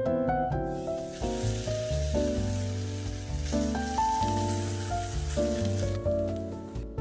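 Chive pancake batter sizzling in hot oil in a frying pan as it is spooned in, the hiss starting about half a second in and fading near the end. Background piano music plays throughout.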